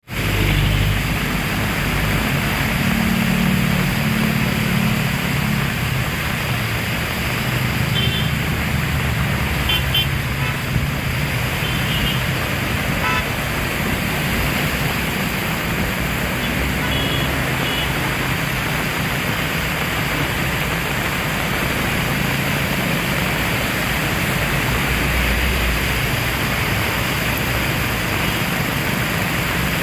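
Heavy rain falling steadily, a dense even hiss, with a low rumble in the first few seconds and a few faint short high chirps around the middle.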